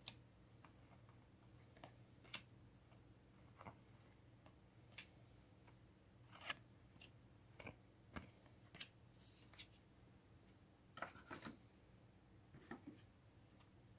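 Baseball trading cards handled and flipped by hand, faint scattered clicks and short swishes of card stock over a steady low hum.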